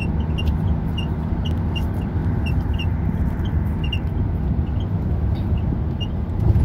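Steady low road and engine rumble of a moving car, heard from inside the cabin at highway speed, with one low thump near the end and faint irregular high ticks.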